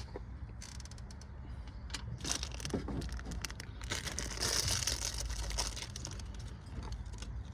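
Hands handling parts: scattered light clicks and knocks, with a rustle from about four seconds in lasting over a second, over a steady low hum.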